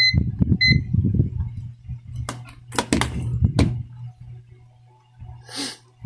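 Two short electronic beeps from a UNI-T clamp multimeter as it is switched on with its rotary dial, about 0.7 s apart. These are followed by a few sharp knocks as the meter is handled and set down on the bench, over a steady low hum.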